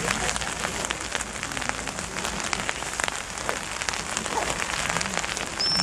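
Steady rain falling, with many small drop ticks close to the microphone. Near the end a high, steady whistle note begins.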